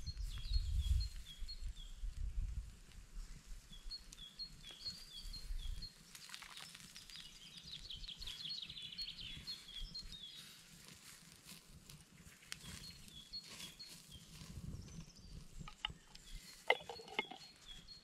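Small birds singing: repeated runs of short, high chirps, with a denser burst of song around the middle. A low rumble in the first few seconds and a few light clicks near the end.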